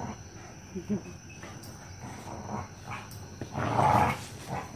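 An Australian Shepherd puppy and a Black Mouth Cur play-fighting: short grunts and growls over scuffling. The loudest, rough growl comes about four seconds in.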